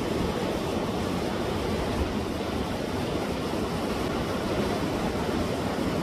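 Sea waves surging against rocks at the shore, a steady, even rush of water with no single crash standing out.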